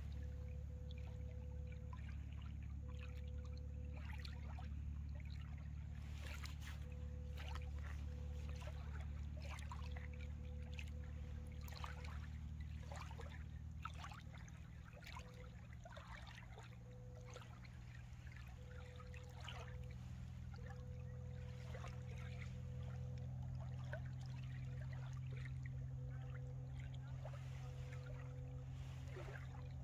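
Small waves lapping and trickling at the lakeshore in irregular little splashes, over a steady low hum.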